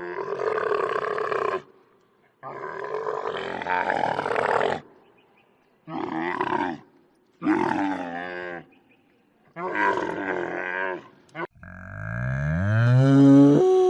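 A farm animal calling over and over: five calls of one to two seconds each with short pauses between them, then a louder, lower call near the end that rises in pitch.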